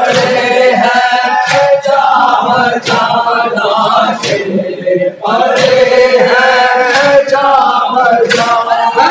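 Men chanting a noha, a Shia mourning lament, in chorus behind a lead male voice, with a short break between lines about five seconds in. Sharp chest-beating (matam) strikes land in time with the chant about every one and a half seconds.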